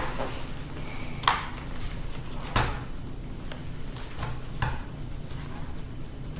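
Hand tools clicking and knocking against a MacBook's casing as it is worked apart: a few separate sharp knocks, the loudest about a second in and again near halfway, with fainter clicks between.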